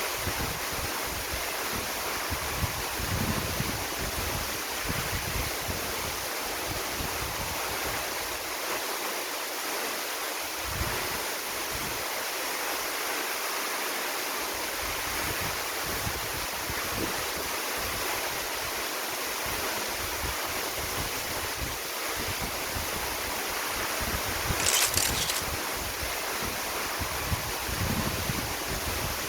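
Waterfall rushing steadily, with wind buffeting the microphone in low, irregular gusts. A brief hiss comes near the end.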